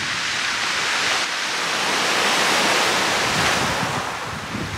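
Small waves breaking and washing over a shingle beach: a rush of surf that swells to its loudest about two to three seconds in and dies away near the end. Wind buffets the microphone underneath.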